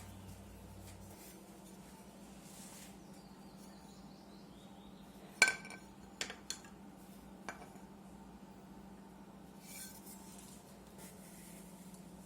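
A sharp metallic clink with a short ring about five and a half seconds in, followed by three lighter clicks, as metal pieces are handled on a workbench, over a steady low electrical hum.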